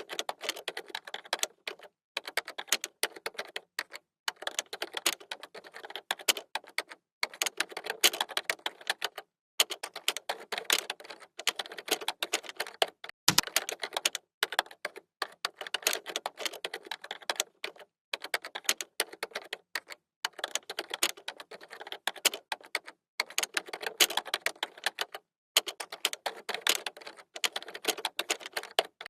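Computer keyboard being typed on: quick runs of key clicks, broken by brief pauses every second or two.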